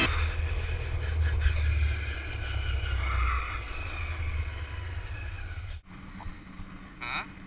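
Lie-down board rolling fast on asphalt, a steady low rumble of the wheels with wind rushing over the microphone. Near the end it cuts off abruptly, replaced by quieter road noise heard from inside a car.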